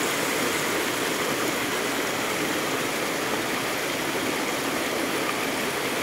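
Water rushing over and between rocks in a shallow, rocky stream's rapids: a steady, even rush.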